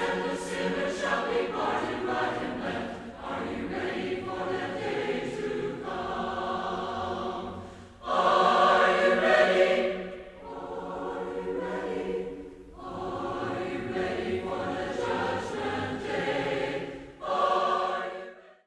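A choir singing a hymn in sustained phrases with short breaks between them, fading out at the end.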